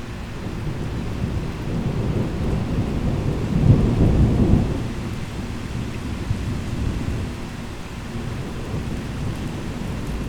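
Rainstorm: steady heavy rain with a low rumble of thunder that swells to its loudest about four seconds in, then rolls off.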